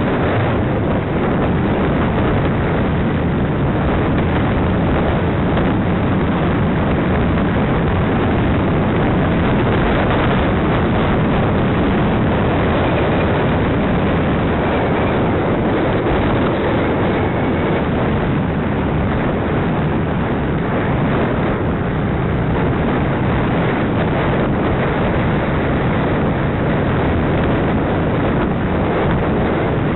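Wind buffeting the microphone of a bicycle-mounted camera while riding, a loud, steady rush of noise with a heavy low rumble.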